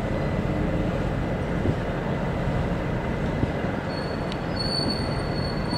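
Moored fishing boat's engine running steadily, a low rumble with a hum. About four seconds in, a thin high steady whine joins it.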